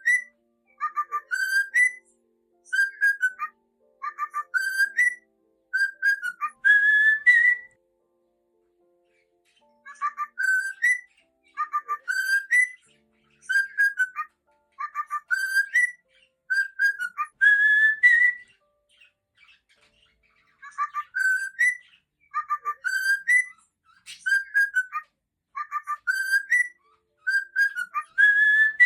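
Cockatiel whistling a learned song, repeating the same short phrase over and over: a few quick notes ending in an upward-sliding whistle, roughly every second and a half. Every few phrases a longer version comes, and the song breaks off twice for a couple of seconds.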